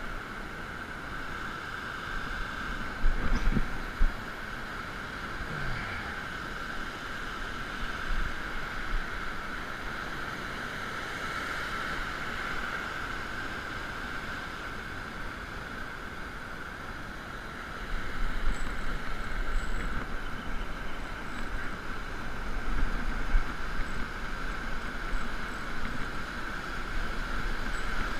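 Ocean surf washing and breaking, with wind buffeting the microphone. There are a few sharp knocks about three to four seconds in, and heavier gusts of rumble from about eighteen seconds on.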